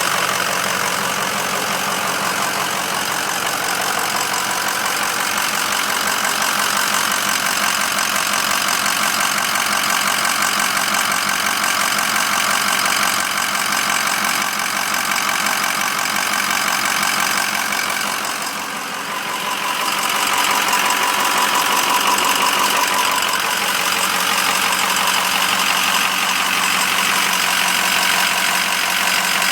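2006 Ford 6.0 Power Stroke V8 turbo-diesel running steadily with a rapid knocking clatter. The sound dips briefly a little past halfway, after which a steady tone comes up over the clatter.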